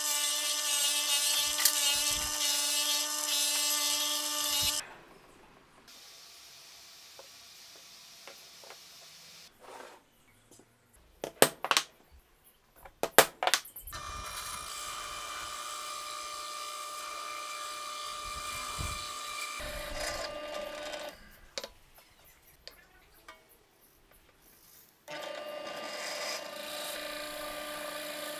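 A homemade disc sander driven by an Ingco electric motor runs with a wooden block pressed against it, stopping about five seconds in. After a quiet stretch come several sharp knocks. Then a drill press bores into a laminated wooden block, running steadily for about seven seconds, pausing, and starting again near the end.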